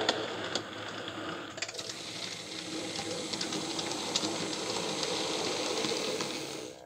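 Model Drewry 04 diesel shunter running on model railway track, hauling wagons: a steady whirr from its small electric motor and gears, with scattered clicks from the wheels on the track. The sound shifts about a second and a half in and cuts off just before the end.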